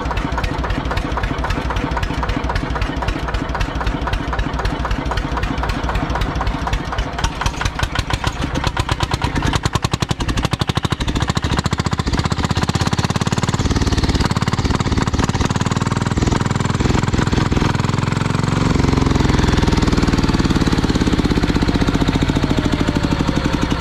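Turbocharged single-cylinder tractor diesel engine running with a rapid, even firing beat. It is revved up about halfway through and runs harder and louder near the end.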